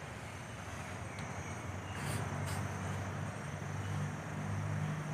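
Low steady hum of a motor, louder from about two seconds in, with a couple of faint light taps.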